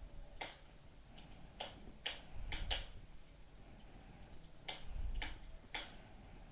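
Wood fire crackling: sharp pops at irregular intervals, about seven of them, over a low rumble that swells twice.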